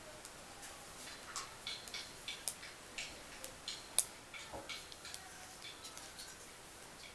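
Metal knitting needles clicking and tapping against each other at an uneven pace as stitches are worked, with one sharper click about four seconds in.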